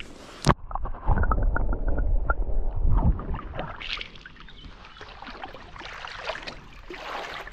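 Shallow lake water splashing and sloshing around hands releasing a small pike at the shore, close to the camera. A sharp knock comes about half a second in, the loudest splashing and rumbling follows for a couple of seconds, then lighter lapping.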